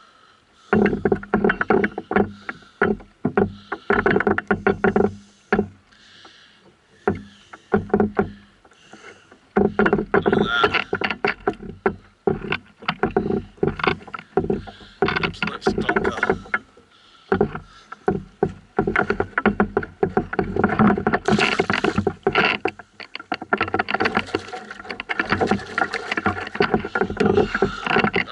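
Rapid, irregular knocking and rattling against the hull of a canoe, coming in clusters with short pauses in between.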